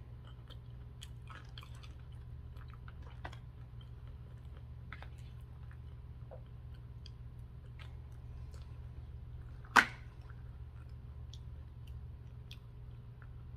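Close-miked chewing of food, with small wet mouth clicks throughout and one sharper, louder sound about ten seconds in, over a steady low hum.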